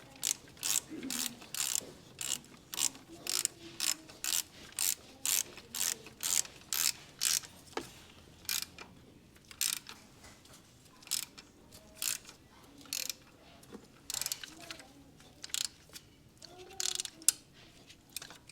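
Ratchet wrench clicking in repeated strokes, about two a second at first, then in shorter, irregular runs with pauses.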